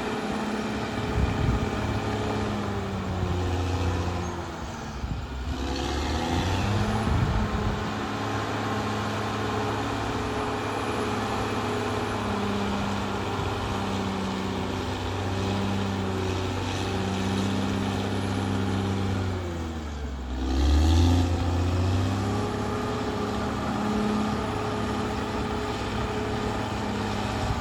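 Caterpillar D6R XL bulldozer's diesel engine running steadily, its pitch dipping and picking back up twice, about five seconds in and again about twenty seconds in.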